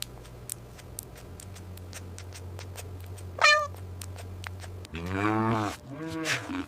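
Animal calls: a short falling cry about three and a half seconds in, then two longer arching cries near the end, over a steady low hum.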